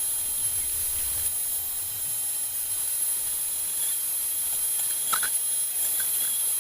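A small high-speed power tool running steadily with a high whine over a hiss, with a brief knock about five seconds in.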